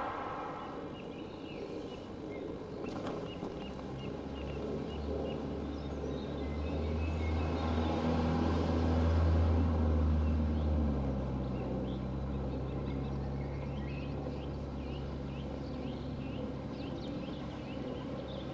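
A low engine drone swells to its loudest about halfway through, then drops to a lower, steady note. Birds chirp throughout.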